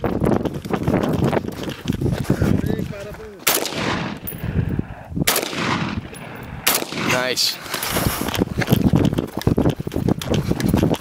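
Three loud .223 rifle shots, the first about three and a half seconds in and the others roughly a second and a half apart, each followed by a fading echo. A rough, crackling background noise fills the gaps between them.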